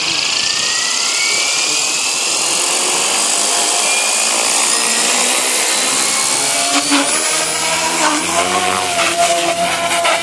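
Electric RC model helicopter (Devil 420) spooling up: a high whine from the motor, gears and rotor that rises steadily in pitch as the head gathers speed. About seven seconds in it lifts off and flies, and the pitch starts to waver up and down with the changing load.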